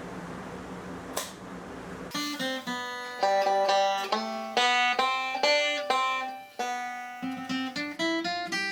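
A steady low hum for about two seconds, then plucked-string instrumental music starts, with quick picked notes.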